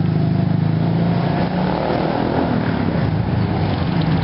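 Motor vehicle engine running with a steady low hum, strongest in the first couple of seconds, over a background of street traffic noise.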